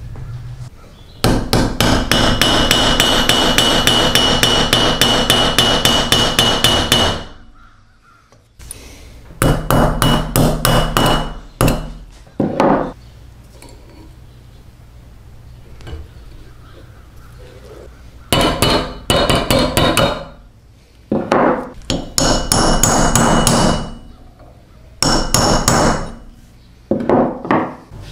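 A hammer rapidly tapping steel parts on an anvil, in runs of quick strikes with a metallic ring. The longest run lasts about six seconds, from a second in. Several shorter runs follow.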